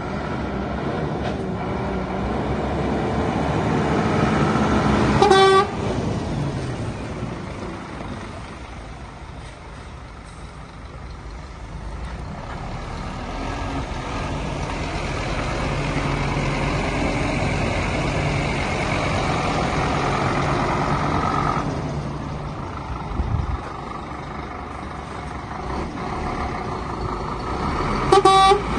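2006 Scania P270 car transporter's five-cylinder diesel engine running as the truck drives in and manoeuvres, with a steady whine for several seconds in the middle. Two short horn toots, one about five seconds in and one near the end, are the loudest sounds.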